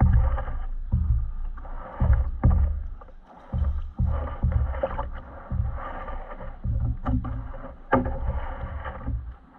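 Small waves slapping against a plastic kayak hull: irregular low knocks about once or twice a second, with water splashing and lapping between them.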